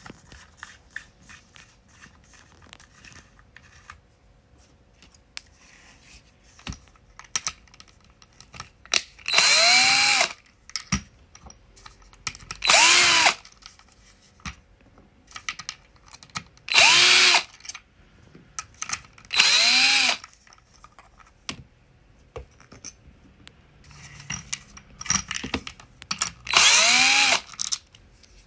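Small cordless drill-driver run in short bursts of about a second each, five times, its motor whirring up and winding down as it backs screws out of a 3D-printed model being taken apart. Scattered clicks and knocks of parts being handled fall between the bursts.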